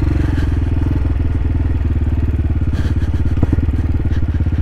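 CSC TT250 motorcycle's single-cylinder four-stroke engine running steadily as the bike rolls along a dirt track, with a couple of light clicks a little past three seconds in.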